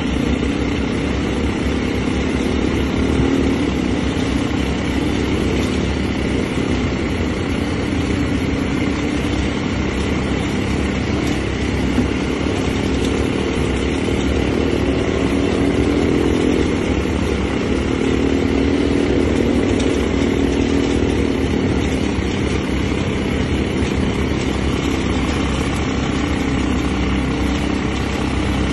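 ATV engines running steadily at cruising speed, a continuous, even engine drone.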